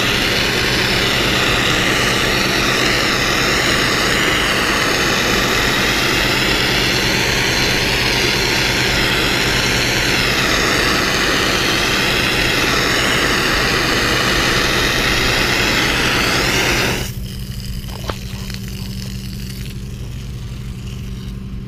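A pressure washer wand blasts a high-pressure water jet across exposed-aggregate concrete, a loud steady hiss over the steady hum of the pressure washer's motor. About 17 seconds in, the spray stops and only the machine keeps humming.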